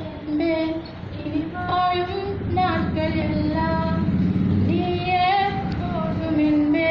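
A girl singing solo into a microphone, unaccompanied, in long held notes that bend and waver in pitch.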